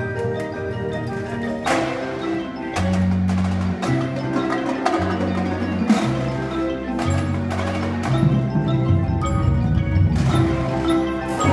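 Indoor drumline and front ensemble playing: marimba and other mallet notes over long held low notes that change about once a second, with sharp drum strikes a few times.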